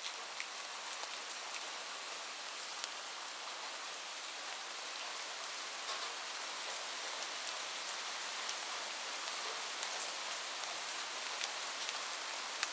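Steady rain falling on a roof, an even hiss with scattered individual drops ticking sharply through it.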